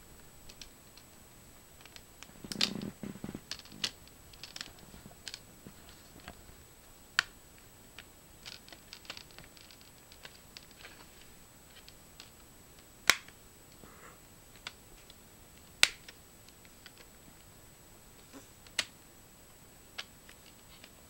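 Plastic screen bezel of an Asus Eee PC 1005HA being pressed back onto the display by hand: its clips snap into place in scattered sharp clicks every second or few, a handful of them much louder, with a short burst of handling rustle about three seconds in.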